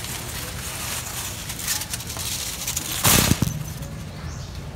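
A shrink-wrapped case of plastic water bottles is lifted out of a wire shopping cart. The plastic crinkles and rustles, loudest in a short burst about three seconds in.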